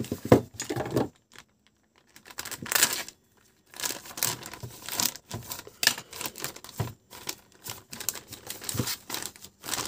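Clear plastic bag crinkling and crackling as hands cut and pull it open, in irregular bursts. There is a quiet pause of about two and a half seconds after the first second.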